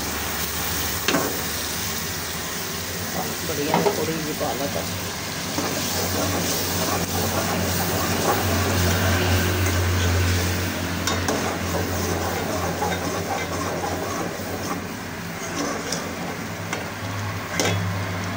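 A metal spatula stirring spinach and meat curry in an aluminium pot, the curry sizzling in its oil, with a few sharp knocks of the spatula against the pot. A steady low hum runs underneath.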